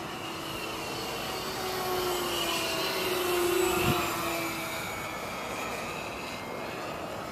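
Small engines of radio-controlled racing model airplanes whining in the air. One plane passes close overhead: its whine swells to a peak about four seconds in, then drops in pitch and fades as it goes by. There is a brief low thump at the loudest point.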